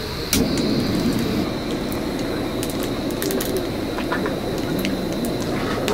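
Portable canister gas stove burner running with a steady roar, starting with a sharp click about a third of a second in; scattered small clicks and knocks over it.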